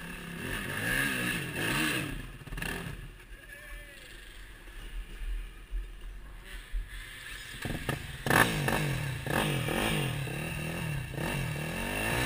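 Dirt bike engines revving up and down as the bikes pick through a rutted, rooty climb. The engines are fainter through the middle, then from about eight seconds in a bike close by revs hard and repeatedly, its pitch rising and falling as it works through the mud.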